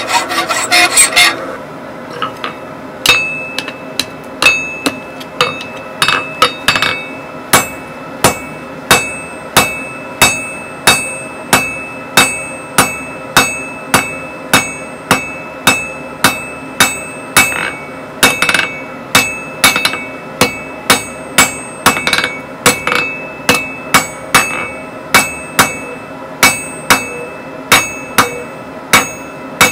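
A hand file rasping on a red-hot steel bar clamped in a vise, stopping about a second in. From about three seconds in, a hand hammer strikes the hot bar on the anvil in a steady rhythm of roughly one and a half blows a second, the anvil ringing on between blows.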